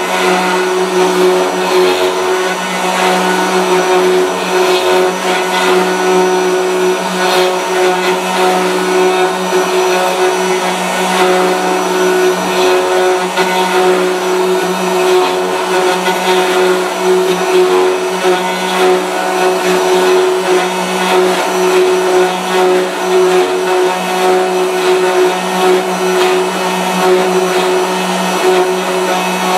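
Router motors of a gunstock copy-carving machine running steadily at high speed as the cutters carve walnut rifle-stock blanks, a constant whine over the noise of cutting.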